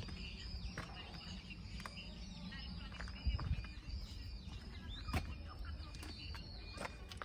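Small birds chirping and twittering in the background over a steady low rumble, with a few sharp clicks scattered through.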